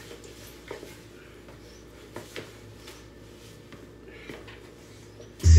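Faint scattered taps and scuffs of sneakers on a hard floor from a dancer's footwork, over a low steady hum. Near the end, loud music with a heavy bass beat starts suddenly.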